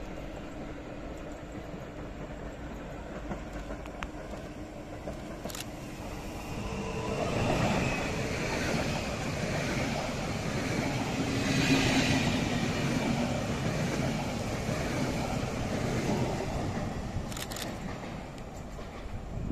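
Stadler FLIRT (PKP Intercity ED160) electric multiple unit passing along the platform track. Its running noise swells from about seven seconds in, peaks about halfway, and fades as it draws away.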